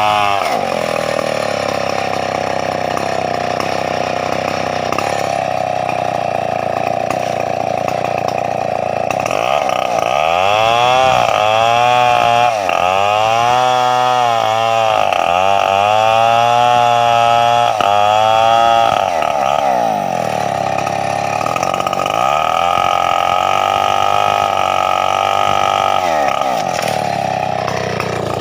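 Stihl 070 two-stroke chainsaw running at high revs while cutting teak, mostly holding a steady high pitch. Through the middle its pitch repeatedly dips and climbs back as the throttle is eased and opened again, and it drops off near the end.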